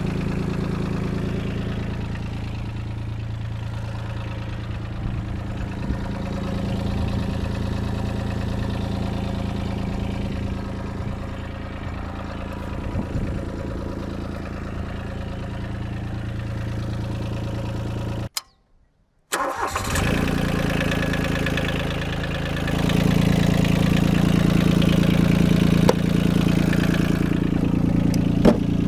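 The Yanmar three-cylinder diesel of a 2004 Kobelco SK13SR mini excavator running steadily at idle, freshly revived after sitting for years. About two-thirds through the sound cuts out completely for about a second, then the engine is running again, growing louder a few seconds later.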